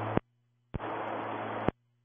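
Air traffic control radio feed with no speech: open-carrier static hiss with a low hum cuts off with a squelch click just after the start. A second wordless keyed transmission of the same hiss comes in about three quarters of a second in, lasts about a second, and ends with another click.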